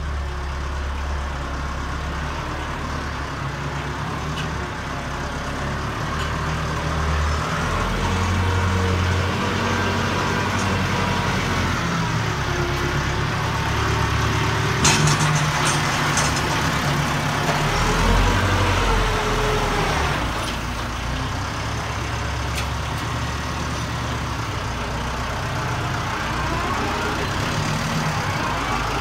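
Case IH Farmall 55A tractor's diesel engine running steadily as the tractor drives and works its front loader, its pitch rising and falling with the load. A sharp knock about halfway through.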